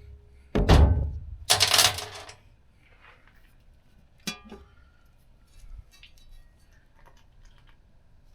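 Two short bursts of a power tool in the first two seconds, unfastening the bolts of the bottom plate on an upside-down Magnum V8 intake manifold. After that, quieter handling of the metal parts, with one sharp ringing metallic clink about four seconds in.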